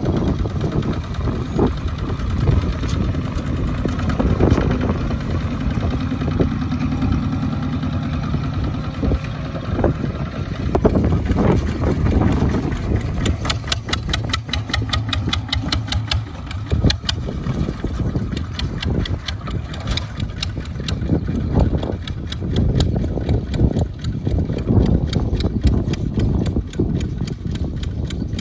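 Single-cylinder diesel engines of two-wheel walking tractors chugging under load as they haul trailers of rice sheaves, with a fast, even putting beat that is clearest midway through.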